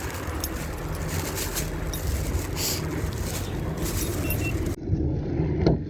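A car's engine running, a steady low rumble with noise over it and a few light clicks. About three-quarters of the way in the sound changes abruptly to something quieter, and a single thump comes near the end.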